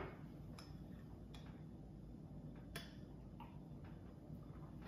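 A spoon stirring yeast and water in a small glass bowl, giving a few faint, sparse clicks against the glass.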